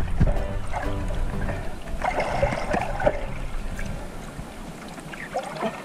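Muffled underwater sound picked up by a submerged camera: a low rumble of moving water with a few clicks and a burst of bubbling about two seconds in, fading a little toward the end.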